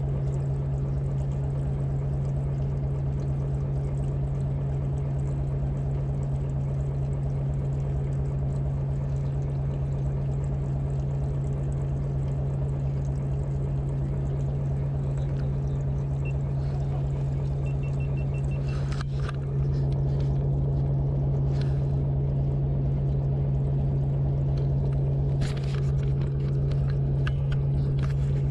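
Boat engine running steadily with an even low hum, stepping up slightly in level about two-thirds of the way through, with a few light knocks and clicks near the end.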